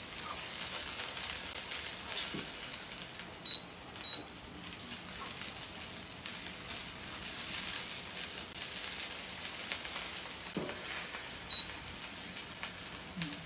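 Ginger slices and spring onion sizzling in hot oil in a stainless-steel wok as they are stirred. Three short high beeps cut through: two close together a few seconds in and one near the end.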